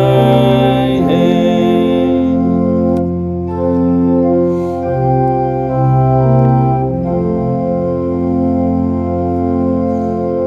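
Organ playing slow, held chords of a hymn tune. The final chord is released near the end and dies away in the room.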